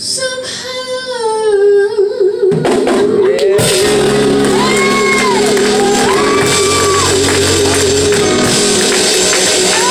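A woman singing over musical backing. Her voice runs down the scale, then holds one long note with vibrato to the end, and a louder wash of noise joins about three and a half seconds in.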